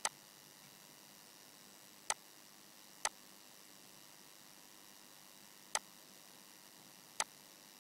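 Computer mouse clicking five times at irregular intervals, each a short sharp click.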